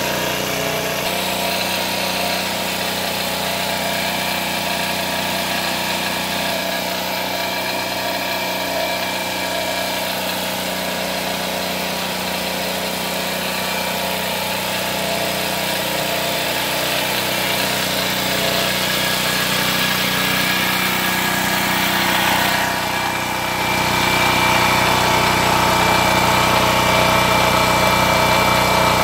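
Generac GP3300 portable generator's single-cylinder engine running at a steady speed, heard from a distance. About three-quarters of the way through it becomes louder and closer.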